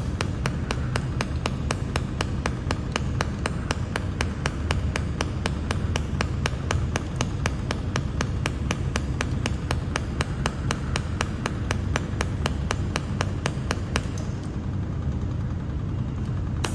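Pulsed laser of a 300 W mold repair laser welding machine firing, each pulse a sharp snap, about four a second in a steady train, over a low machine hum. The pulses stop near the end while the hum goes on.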